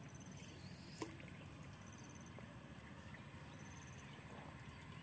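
Faint outdoor ambience with an insect giving short pulsed chirps about every two seconds over a steady high hiss, and a single sharp click about a second in.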